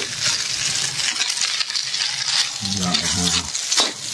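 Fried rice sizzling in a hot wok while a metal ladle stirs and scrapes through it, with sharp clinks of metal on the wok.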